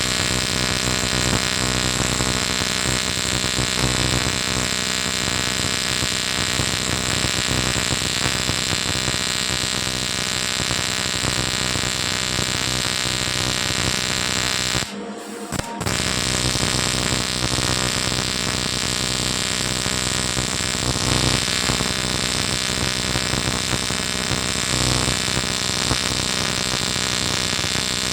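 Aluminium welding equipment running with a steady electrical buzz and hiss, briefly cutting out about halfway through.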